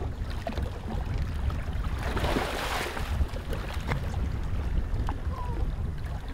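Wind buffeting the microphone as a low, gusty rumble over water noise around a small boat, with a brief rush of noise about two seconds in.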